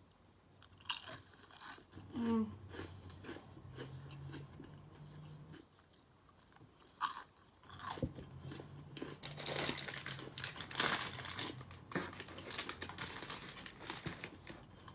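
Crunching and chewing of crispy fried crab rangoons with cream cheese filling. A few sharp bites come in the first half, then a dense run of crunching in the second half.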